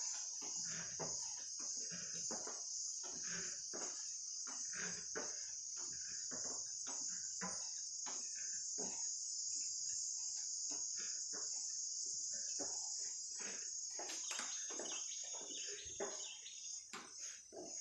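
Steady high-pitched insect chorus, with many short, irregular clicks and knocks over it.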